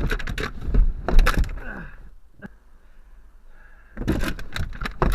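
Scuffle in a car's front seats: a seatbelt being unbuckled and let go, with bodies and clothing knocking and scraping against the seats and door. It comes in two quick flurries of knocks and scrapes, the second starting about four seconds in.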